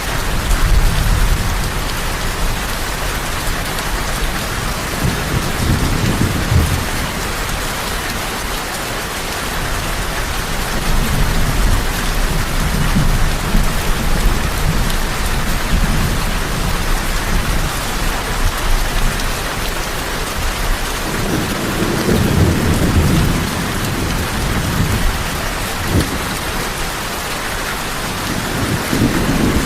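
Heavy rain falling steadily as a dense, even hiss, with low rolls of thunder rumbling up several times.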